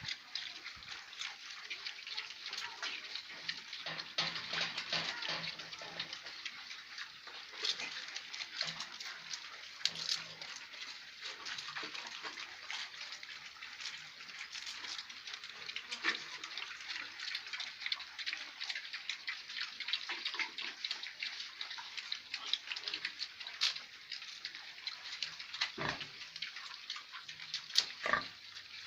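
Three-day-old piglets in a litter squeal and grunt continuously, many short high-pitched calls overlapping. A couple of sharp knocks come near the end.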